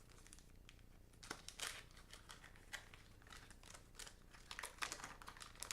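Wax-paper wrapper of a 1990-91 Fleer basketball card pack crinkling and tearing as it is opened, a run of faint irregular crackles starting about a second in.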